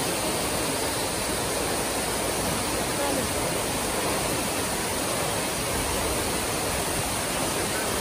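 Kapila Theertham waterfall dropping down a rock cliff into a stone temple tank: a steady, even rush of falling water, with the flow much reduced.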